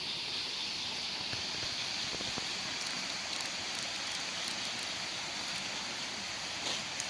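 Steady outdoor night ambience: a constant insect chorus with an even rushing hiss beneath it, and a few faint ticks from about halfway through.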